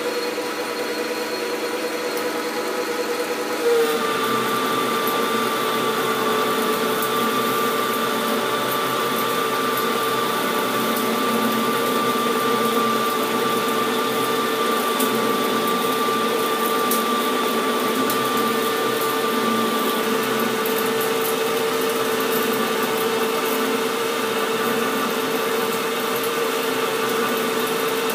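Metal lathe running at about 420 RPM, taking a roughing cut on a chrome-plated steel bar with a carbide insert under flood coolant: a steady machine whine with a fixed tone. About four seconds in, the pitch drops slightly, a higher tone joins and there is a brief louder moment.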